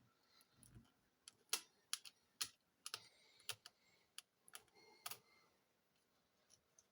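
Small, sharp, irregular clicks and taps of a screwdriver working the screws that hold a laptop's battery, about a dozen in a few seconds.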